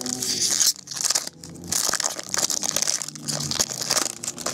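Foil wrapper of a Chrome football trading-card pack crinkling and crumpling in the hands as it is handled and torn open. It gives quick, irregular crackles, with a short lull about a second in.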